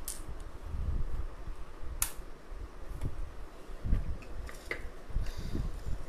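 Handling noise from adjusting the recording setup and light: a sharp click at the start and another about two seconds in, a few smaller clicks and a short hiss later on, over repeated low bumps near the phone's microphone.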